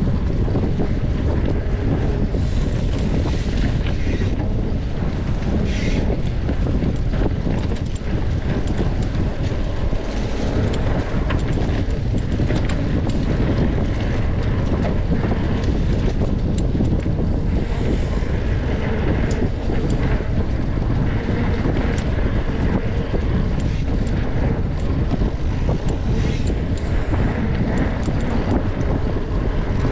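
Steady wind buffeting on a mountain biker's camera microphone while riding at speed, with scattered clicks and rattles from the bike over the trail.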